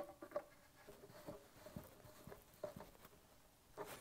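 Near silence: room tone with a few faint, scattered clicks and taps.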